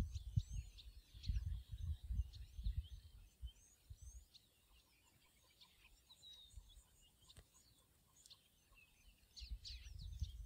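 Wild birds chirping and calling on and off throughout, short high sweeping notes. Low, irregular thudding rumbles are heard through the first few seconds and again near the end, louder than the birdsong.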